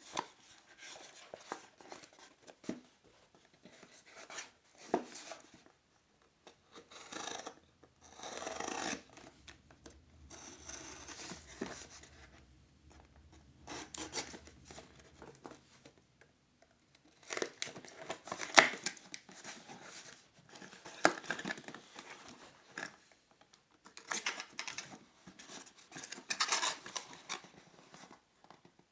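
Box packaging being opened by hand: on-and-off scraping, rubbing and tearing of cardboard and tape, with sharp clicks and snips between.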